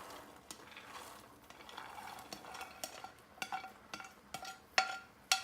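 Chopped carrot and beans being tipped into a pan of half-cooked chana dal and stirred with a metal spoon, soft at first, then the spoon clinks against the pan with a short ring about five times near the end.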